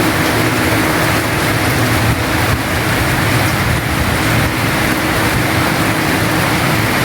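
Heavy rain falling steadily on a roof, a dense, even hiss.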